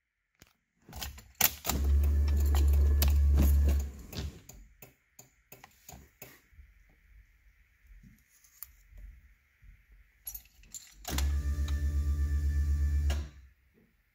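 An electric motor in a 1993 Mazda Miata runs twice with a deep whir, each time for about two seconds: once about two seconds in, and again near the end, when it pulses about seven times a second. Clicks and light rattles fall before and between the two runs.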